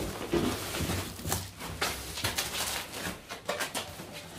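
Cardboard boxes of stone tile being dragged out of a stack and set down on a concrete floor: irregular scraping, rustling of cardboard and dull knocks.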